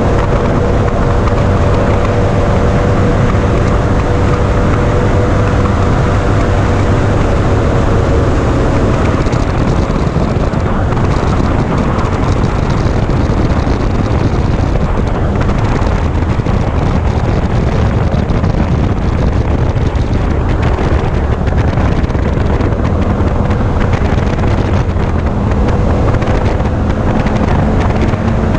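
Mercury 300XS outboard on a bass boat running steadily at high speed, mixed with heavy wind noise on the microphone and the hull rushing over the water.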